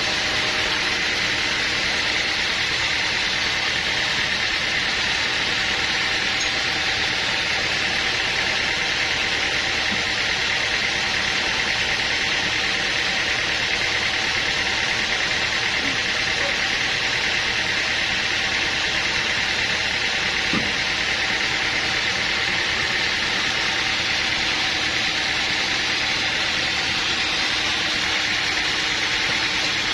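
Sawmill machinery running steadily, a constant mechanical hiss and hum with a few steady tones and no breaks.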